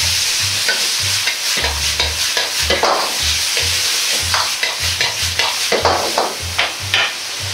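Food sizzling in a hot wok while a ladle scrapes and knocks against the pan in quick repeated strokes, stir-frying diced chicken, nuts and vegetables in ketchup.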